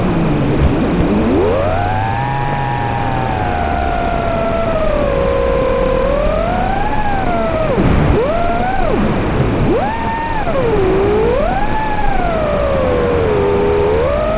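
FPV quadcopter's motors and propellers whining, the pitch rising and falling with the throttle: low at the start, swelling up and down several times, with a brief drop about eight seconds in. A steady hiss lies under it.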